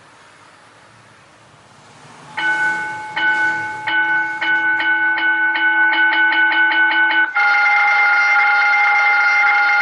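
Electronic running-bell tone from an Ahuja SBELL-8012 school bell unit, played through a horn speaker. After about two seconds of hiss, a few separate bell strokes quicken into rapid strikes, about four a second, then run together into one continuous ringing near the end.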